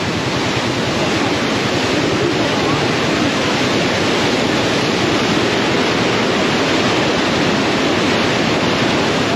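A river in flood: muddy floodwater rushing and churning below, a loud, steady rush of water.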